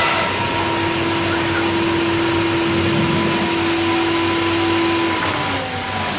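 Onsrud CNC router running: a steady high whine over a rushing machine noise. About five seconds in the whine falls in pitch as the spindle slows down.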